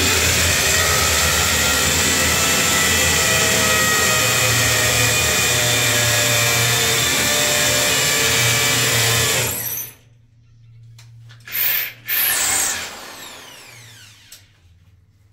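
Corded electric drill boring into a glazed ceramic-tiled wall, running steadily for nearly ten seconds and then stopping. Two short bursts of the drill follow, the second winding down.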